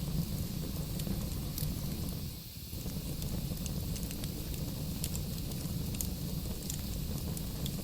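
Wood fire burning in a fireplace: a steady low rumble of the flames with scattered sharp crackles and pops from the logs, easing briefly about two and a half seconds in.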